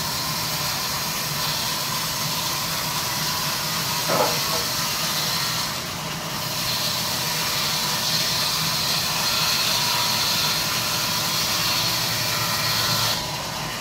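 Large sawmill band saw cutting through a log: a steady high hiss of the blade in the wood over the low hum of the drive. The hiss dips briefly about six seconds in and drops off near the end.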